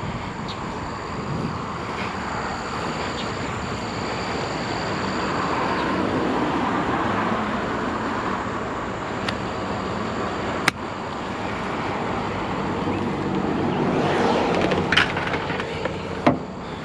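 Vehicle driving with a loaded scrap trailer: steady road and engine noise that swells and eases, with a thin high whine. A single sharp click comes about eleven seconds in, and a few knocks near the end.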